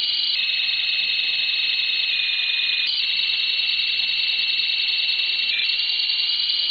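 Shortwave radio data signal received on a WebSDR at 13565 kHz: a dense cluster of steady, high-pitched electronic tones that shifts to slightly different pitches in small steps every second or two.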